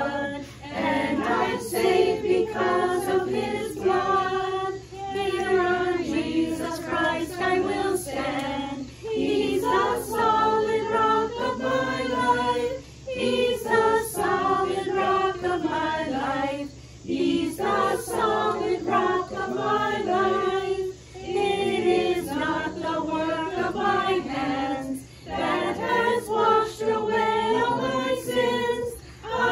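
Congregation singing a hymn together, many voices in phrases of about four seconds with brief breaths between them.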